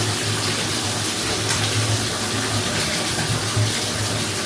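Water running steadily into a bathtub from a tap or sprayer, with a steady low hum beneath it.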